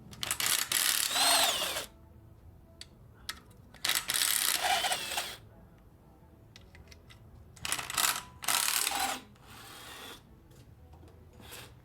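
Power drill spinning in four short bursts, its pitch rising and falling, with light clicks between, typical of running bolts out during a 2.4 Ecotec engine teardown.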